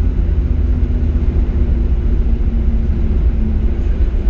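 Steady low rumble heard inside the cabin of a Boeing 737-800 rolling along the runway after touchdown, with the CFM56 engines' hum running over it.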